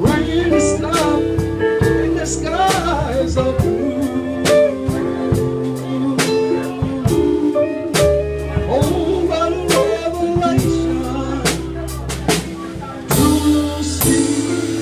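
Live blues band: a man singing into a microphone over electric guitar, keyboard and drums.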